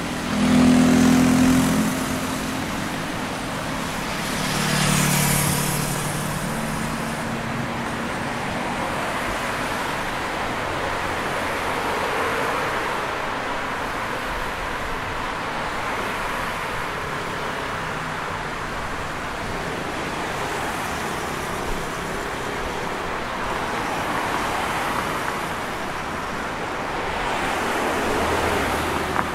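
Street traffic: a steady wash of passing cars, with a louder vehicle going close by about a second in, another around five seconds in, and a third swelling near the end.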